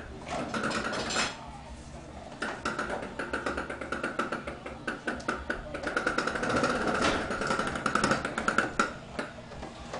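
Toy truck running, a steady whine with rapid clicking and rattling, fading about a second and a half in and strongest near the end.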